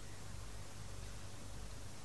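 Quiet room tone: a steady hiss with a low electrical hum and no distinct events.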